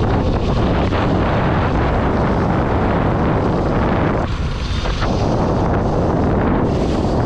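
Heavy wind buffeting on a GoPro's own microphone on a motorcycle riding at speed in the rain, with the bike's engine running underneath. The buffeting eases briefly about four seconds in.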